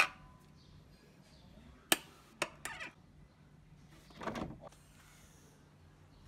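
A few sharp clicks about two seconds in, then a short scraping rustle about four seconds in: handling noise while working around the engine bay.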